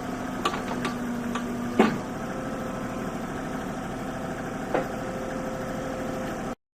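Kubota U30-3S mini excavator's diesel engine idling steadily, with a few sharp knocks over it, the loudest about two seconds in. The sound cuts off abruptly near the end.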